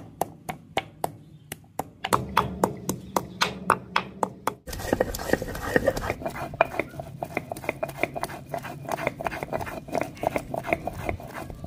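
Close-up crunching and chewing of a crisp fried snack, patyud: sharp crunches about three a second at first, growing denser and more continuous after about five seconds.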